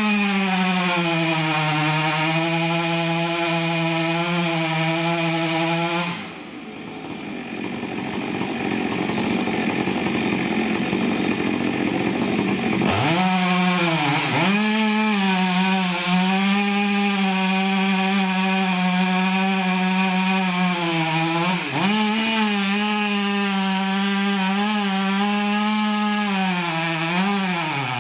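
Two-stroke chainsaw running at high revs, a steady high engine note. For about seven seconds it turns to a harsher, rougher noise, then revs back up. Later it dips in pitch three times as the chain bites into the wood.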